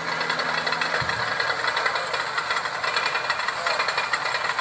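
Heavy truck's diesel engine running with a rapid knocking rattle during a recovery tow. A steady low hum under it cuts off about a second in.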